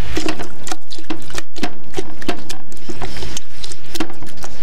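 Rapid irregular clicks and knocks, about four or five a second, as meat is put by hand into a stainless stockpot of broth and handled in it.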